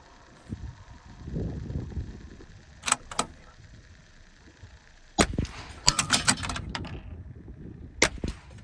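Shots from a CZ bolt-action .22 LR rifle: a pair of sharp cracks about three seconds in, a louder one a little after five seconds, a quick cluster of cracks and clicks around six seconds, and another crack near the end.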